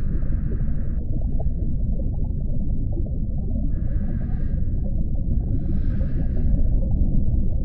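Steady deep underwater rumble with scuba regulator breathing over it: a hissing breath at the start that cuts off suddenly after about a second, then two more breaths around the middle.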